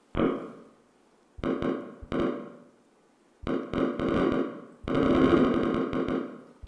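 Recorded spiking of a single brain neuron played back as sound: bursts of rapid clicks that run together into a buzz. A short burst comes at the start, two around the second second, and two longer ones after that, the last the longest.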